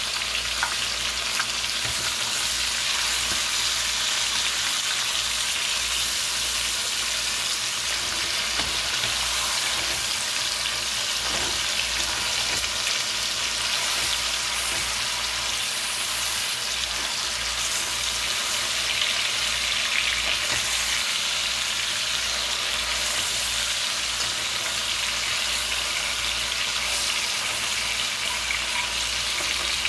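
Chicken pieces sizzling steadily as they brown in hot fat in an aluminium pot, with now and then a light scrape of the fork that turns them.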